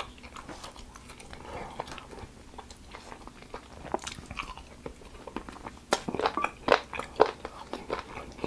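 A man eating a sweet and spicy garlic chicken wing, picked up close by a clip-on mic: he bites in about four seconds in, then chews, with a run of sharp crunching bites near the end.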